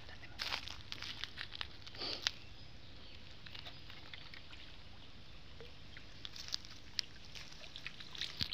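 Faint scattered clicks and rustles from a bamboo pole and bamboo-framed lift net being handled and raised out of a pond, busiest in the first two seconds and again near the end.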